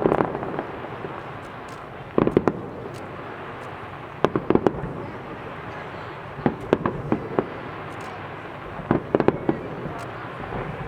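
Aerial fireworks bursting in volleys: clusters of sharp bangs about every two seconds over a continuous crackling rumble.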